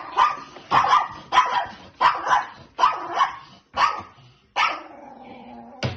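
Small dog barking from inside its doghouse at a person leaning in: a run of sharp barks a little more than one a second, ending in a longer, drawn-out sound.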